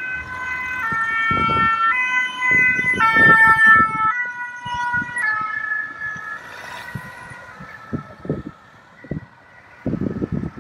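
Two-tone French fire brigade siren on a fire service command liaison van, switching between a high and a low note about once a second. It is loudest as the van passes, drops slightly in pitch, and fades as the van drives away.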